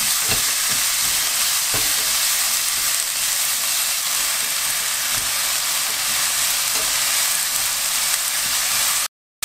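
Julienned bellflower root sizzling steadily in hot oil in a frying pan as it is stirred with chopsticks, with a couple of light taps in the first two seconds. The sound drops out to silence for a moment just before the end.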